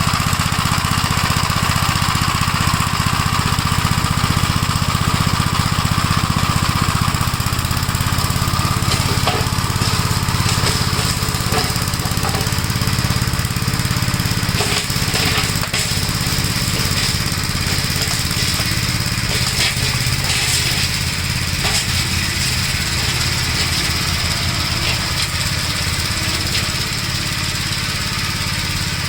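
Gravely Model L walk-behind tractor's single-cylinder engine running steadily. Its low engine note changes and roughens about seven seconds in, with scattered light knocks and rattles.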